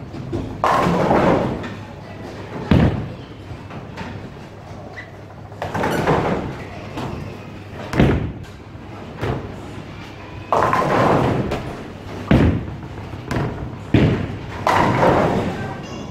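Bowling alley action: bowling balls thud onto the lane and roll, and pins crash a couple of seconds after each throw. The crashes come again and again, each lasting about a second, between sharp knocks.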